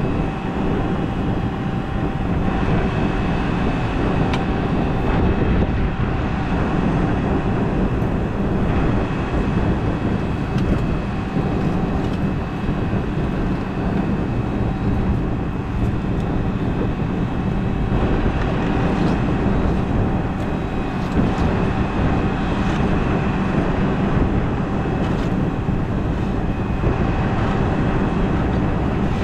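Tractor engine running steadily while pulling an air seeder across the field, a constant drone with a few steady tones over it.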